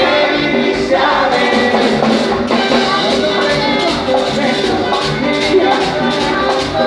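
Latin American band music with a steady drum beat and a melody of held notes, with some singing.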